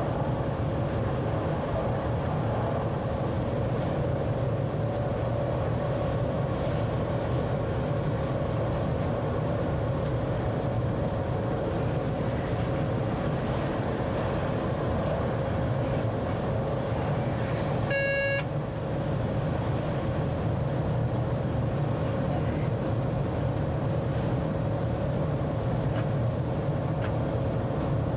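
Electric train running steadily along the track, heard from the driver's cab: an even running rumble with a constant faint tone through it. A short pitched beep or horn tone sounds once, about two-thirds of the way through.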